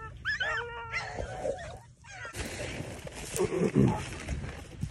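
Beagles baying on a rabbit's trail: a long, drawn-out howl in the first second, then rougher, broken bawling.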